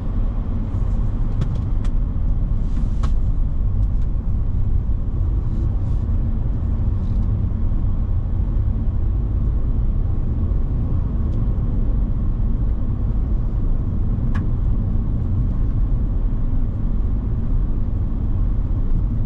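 Steady low rumble of a car driving, road and engine noise, with a couple of faint clicks along the way.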